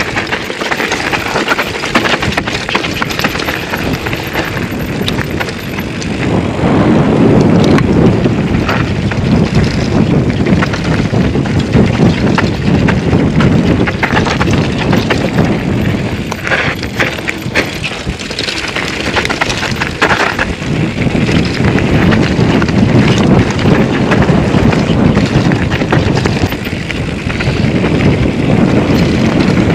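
2008 Intense Tracer full-suspension mountain bike clattering and rattling over rough ground on a fast descent, with constant small knocks from the tyres and frame and wind rushing over the camera microphone. It gets louder and deeper about seven seconds in.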